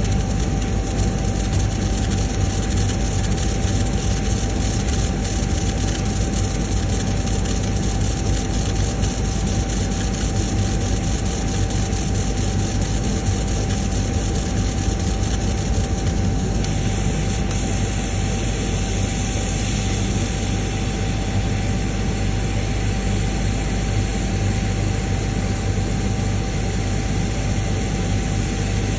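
CNC router spindle running and milling coconut shell, a steady whine over a constant rush of cutting noise and hum.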